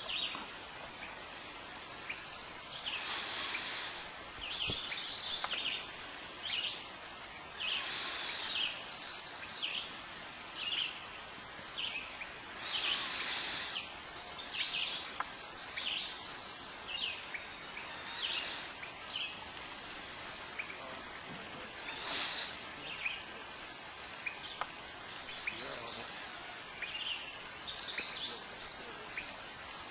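Songbirds singing short, high, quickly repeated phrases every few seconds, over soft swishes of water that come and go about every four to five seconds, in keeping with a canoe paddle's strokes.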